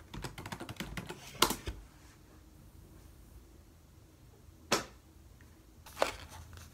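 Handling noise: a scatter of light taps and clicks, with single sharper knocks about a second and a half in, near five seconds and at six seconds, over quiet room tone.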